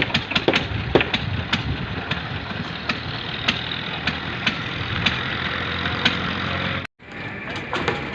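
An engine running steadily on a construction site, with scattered sharp knocks about every half second to a second over it. The sound cuts out for a moment near the end.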